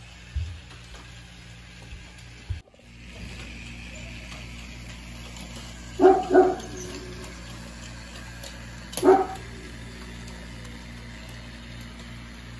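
A dog barks three times, two quick barks about six seconds in and one more about three seconds later, over the steady pulsing hum of a toy Walt Disney World monorail's motor running along its beam track.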